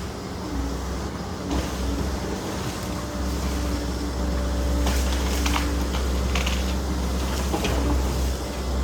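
Volvo EC140 excavator's diesel engine running under working load with a steady hydraulic whine. Several sharp knocks or cracks come in a cluster about five to seven and a half seconds in.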